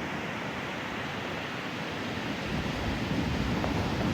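Steady rushing wind noise on the microphone, with a low rumble building about two and a half seconds in.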